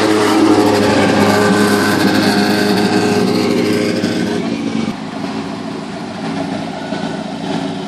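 Engine of a modified VW Golf Mk1 race car running as it drives slowly past close by, loud at first, then quieter from about five seconds in as it moves away.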